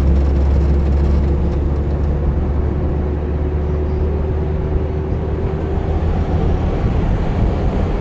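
Engine and road rumble heard from inside a moving public-transport microbus (combi): a steady low drone, with a faint steady whine that fades out about six seconds in.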